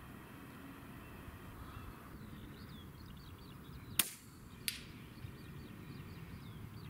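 A single shot from a Bergara B14R .22LR rimfire rifle, one sharp crack about four seconds in. A much fainter tick follows about two-thirds of a second later, the bullet striking the hanging steel target.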